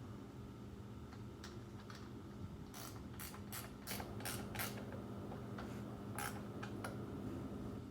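Small metal carburetor parts clicking and scraping as they are handled and fitted back onto a small engine, a quick run of about six clicks in the middle with a few more after, over a steady low hum.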